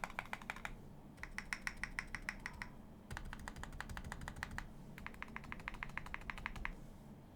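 Typing on a custom electrocapacitive (Topre-style) keyboard with 49 g rubber-dome switches, 0.3 mm silencing rings and GMK keycaps: four quick runs of keystrokes with short pauses between them.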